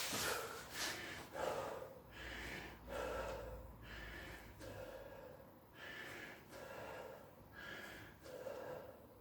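A person breathing hard in a steady rhythm, short heavy breaths roughly every second, from the exertion of a workout exercise.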